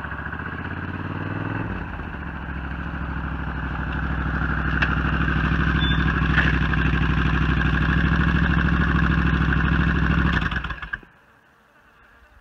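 1987 Suzuki Intruder 1400's V-twin engine running as the motorcycle rides slowly up. Its pitch rises over the first two seconds, then it runs steadily and grows louder as it comes close. The engine is shut off about eleven seconds in.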